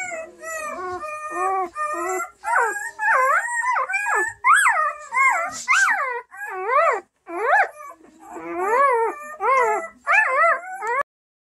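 Newborn Bernese Mountain Dog puppy crying: a steady run of short, high whimpering cries that rise and fall in pitch, about two a second, stopping abruptly near the end.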